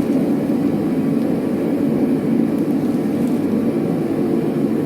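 Steady rushing roar of a running forge and its air supply, even and unbroken, with no hammer blows.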